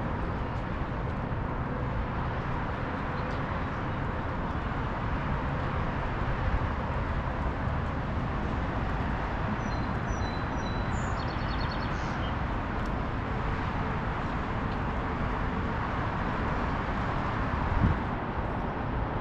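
Steady outdoor background noise, like a distant traffic hum, with a few short bird chirps about ten to twelve seconds in and a brief thump near the end.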